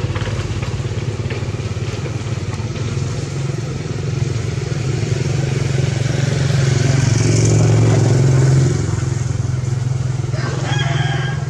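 A motor engine running steadily with a low, pulsing drone. It grows louder past the middle, then drops back suddenly about three-quarters of the way through.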